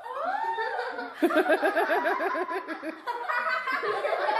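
Laughter: a rising and falling whoop, then from about a second in a quick run of 'ha-ha-ha' notes, with more laughing continuing toward the end.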